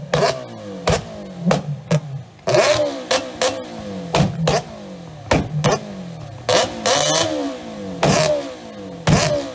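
Motorcycle engine revved hard through huge cone-shaped exhaust pipes in sharp repeated throttle blips, about two a second. Each blip opens with a loud crack and its pitch falls away before the next.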